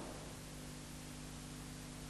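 Steady hiss with a low electrical hum underneath: the background noise of an old videotape recording, with no other sound.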